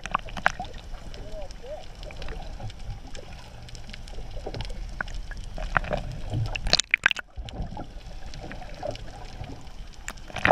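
Muffled sloshing and gurgling of water around a camera held underwater, over a steady low rumble with scattered clicks. A louder, splashy burst comes about seven seconds in.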